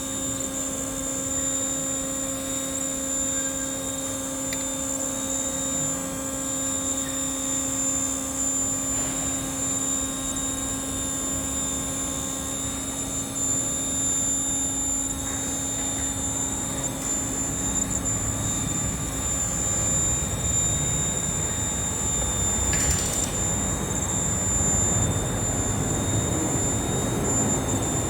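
Steady machinery hum with a high, thin whine, joined about two-thirds of the way through by a low rumble that builds.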